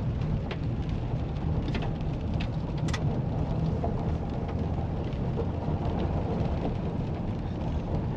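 Chevrolet Impala rolling slowly along a wet gravel road, heard from inside the cabin: a steady low rumble of tyres and engine, with scattered sharp ticks.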